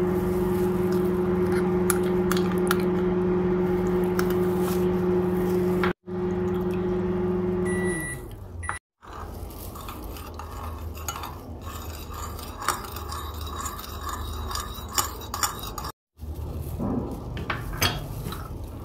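A kitchen appliance's motor hums steadily, then stops with a short beep, its pitch sliding down as it winds down. After that a metal spoon stirs tamarind pulp in water in a ceramic plate, scraping and clinking now and then against the plate.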